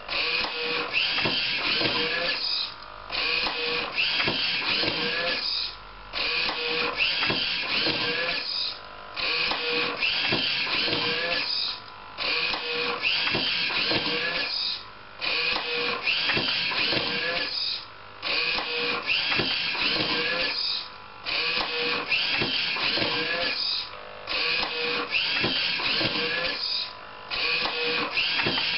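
Home-built automatic book scanner cycling through pages: its page-turning mechanism runs with a mechanical whir and clatter, dropping out briefly about every three seconds between page turns.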